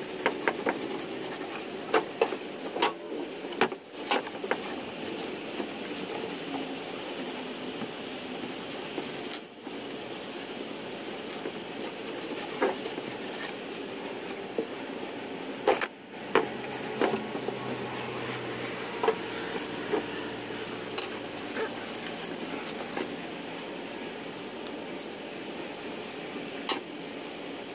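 Rag rubbing and wiping with acetone, with scattered light clicks and knocks from handling a metal tool and a metal acetone can, over a steady background hiss.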